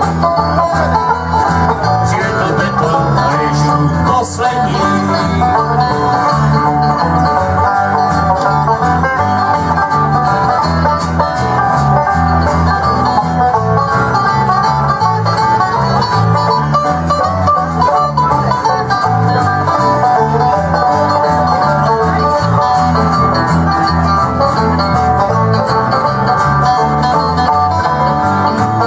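Live country-style band playing an instrumental passage with no singing: acoustic guitars strumming over a steady electric bass line.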